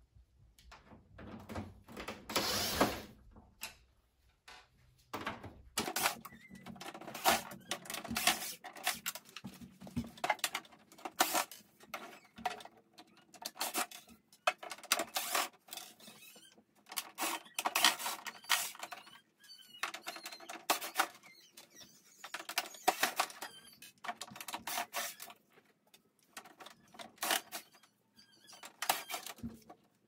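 A cordless drill backs screws out of a portable air conditioner's plastic casing in short runs. Many small clicks, taps and rattles of metal screws and the tool being handled and set down on a wooden table come between the runs.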